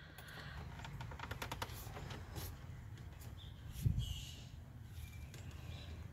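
A knife cutting into the old rubber intake hose at the throttle body: a run of light clicks and rubbing, with a soft bump about four seconds in.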